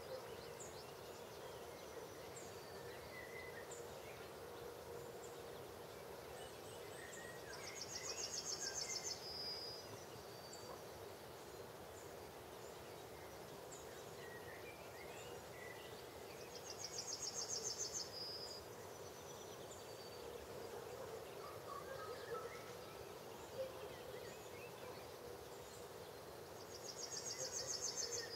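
A songbird repeats a short, fast, high trill three times, about every nine seconds. Each trill grows louder and ends in a brief lower note. Fainter chirps from other birds and a faint steady hum sit underneath.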